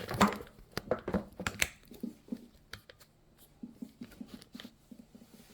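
Short clicks, scrapes and light rattles of small metal parts being handled as the flame sensor is taken off a gas furnace. They are busiest in the first two seconds, then thin out to lighter ticks.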